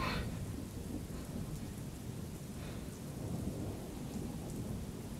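Steady low rumble of thunder under a soft hiss of rain.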